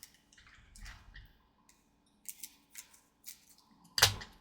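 Trading card booster packs and cards being handled: a series of short crinkling, snipping sounds, with one sharp, loud snap about four seconds in.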